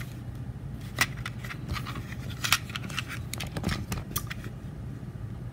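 Scattered small clicks and light knocks of plastic cassette adapter shells being handled, over a faint steady low hum.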